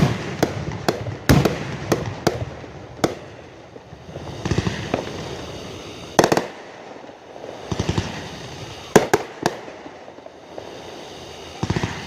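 Aerial fireworks going off: sharp bangs of shells bursting in irregular clusters, with stretches of crackling between them.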